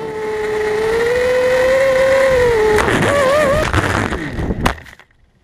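FPV quadcopter's electric motors whining at a steady pitch, then several tones wavering as the throttle and motors change about three seconds in, with a sharp knock near the end before the motor sound falls away.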